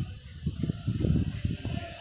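Soft, irregular low knocks and rustling, the sound of things being handled or moved about.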